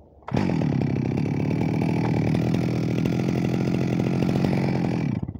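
Stihl MS 361 single-cylinder two-stroke chainsaw engine snapping up from idle to high revs about a quarter second in and held steady for about five seconds, then dropping off sharply near the end as the throttle is let go. This tests the freshly adjusted carburettor.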